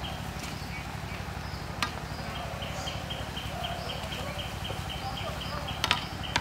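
Noodles boiling in a large metal wok while a slotted metal spatula stirs them, with two sharp knocks of the spatula against the pan, about two seconds in and near the end. An insect keeps up a high, evenly pulsed chirping, pausing briefly early on and resuming about two seconds in.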